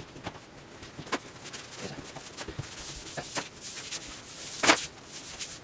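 Scattered light clicks and knocks of tools and parts being handled while a transmission is taken apart, with one louder knock about three-quarters of the way in.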